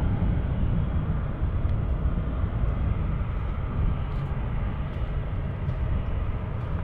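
Jet engines of a twin-engine widebody airliner running at high thrust on its takeoff roll: a steady low rumble with a rushing noise above it.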